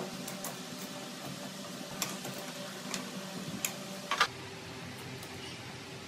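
Homemade belt grinder's washing-machine motor running with a steady hum, with a few sharp clicks and knocks from hands handling the grinder's wooden frame and tracking arm. The hum changes pitch about four seconds in.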